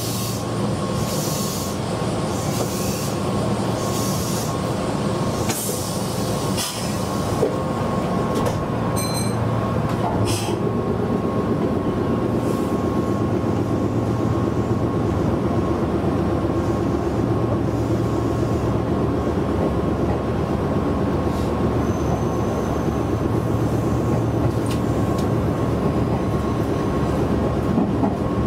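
Meitetsu 6800 series electric commuter train running, heard from inside the car: steady motor hum and wheel-on-rail noise, with a few sharp knocks between about six and ten seconds in.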